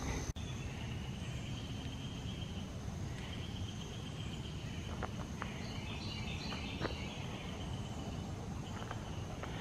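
Summer forest insects chirring steadily, with a high, even whine over a lower, steady trill. About six seconds in a bird sings a short phrase of quick notes stepping up and down in pitch.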